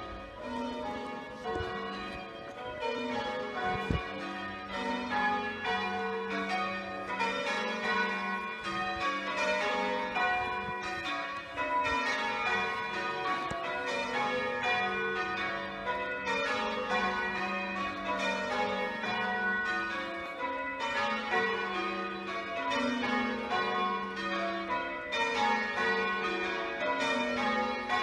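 A ring of six church bells, tenor 13 cwt in F sharp (front three cast by John Rudhall in 1810, back three by Mears and Stainbank in 1961), rung full circle in rounds and call changes. The strikes come in steady, repeated falling runs, heard from outside the tower.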